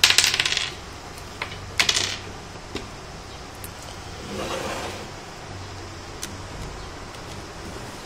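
Small metal tools clinking and clattering as they are handled on a workbench: a rattling clatter right at the start and another about two seconds in, then a few light clicks and a brief rustle near the middle.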